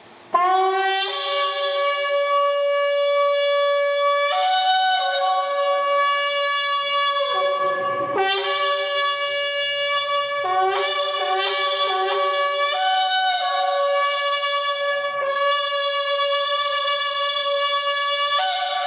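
An extra-large 95 cm polished spiral-horn shofar blown in long held blasts. It steps between a low note around F# and higher notes, with a quick run of short notes about eleven seconds in.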